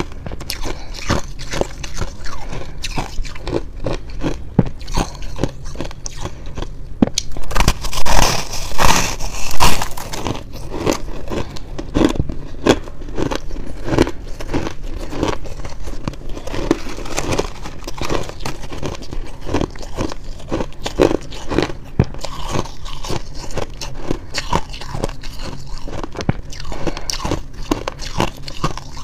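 Chunks of packed shaved ice bitten and chewed, close-miked: a dense, continuous run of crisp, crackling crunches, loudest for a couple of seconds about eight seconds in.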